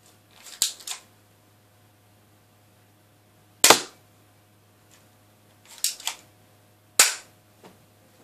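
Small plastic ES-389 airsoft gun firing two shots, sharp cracks about three seconds apart, with quieter pairs of clicks before each shot.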